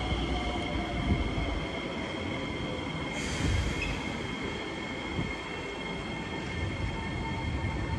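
C151 metro train departing a station platform: a steady low rumble with a steady high whine, and a short hiss about three seconds in.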